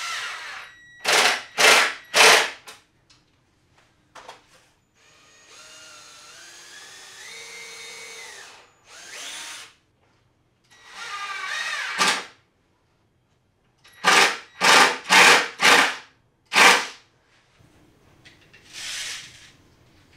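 Cordless drill driving screws into plywood in short trigger bursts, with one longer run of several seconds in the middle whose pitch rises in steps, then a quick series of five more bursts.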